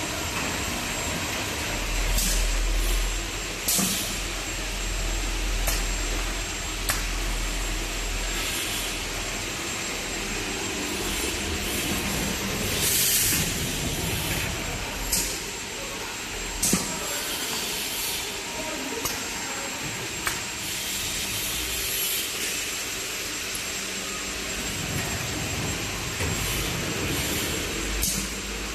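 Automatic egg roll baking machine running: a steady mechanical hum and hiss with scattered clicks and knocks, and a brief louder hiss about 13 seconds in.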